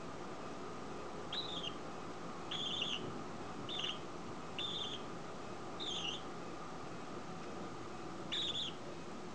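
Budgerigar giving six short chirps, a second or two apart, over a steady background hiss.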